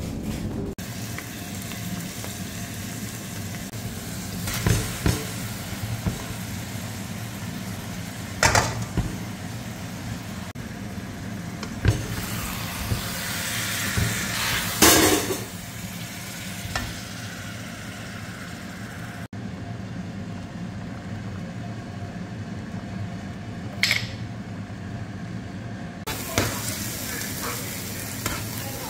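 Minced meat and onions sizzling as they fry in a pan. A steel spoon stirs them, knocking and scraping against the pan now and then.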